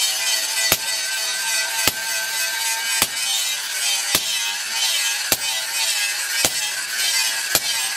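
Hammer blows on a hot chainsaw guide bar laid on a steel anvil, struck at an even pace of about one blow a second, seven strikes in all, over a steady hiss.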